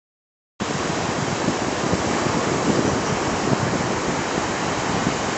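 Steady wash of ocean surf mixed with wind buffeting the microphone, starting about half a second in.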